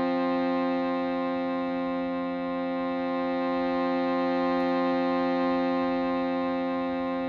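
Shruti box droning a steady, many-toned chord together with a ringing alchemical crystal singing bowl, held without a break and swelling gently in loudness.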